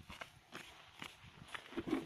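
Footsteps crunching on thin fresh snow: a few irregular steps.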